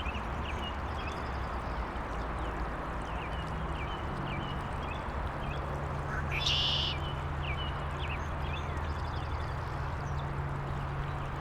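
Steady rush of a water stream under a low, constant hum of distant highway traffic, with birds chirping throughout. A louder, brief bird call stands out about six and a half seconds in.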